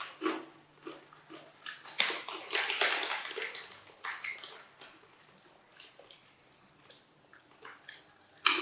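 Crinkling of foil snack packets and crunching of coated peanuts as a young monkey eats, in short scattered crackly bursts, with a denser, louder stretch about two seconds in and a sharp crackle near the end.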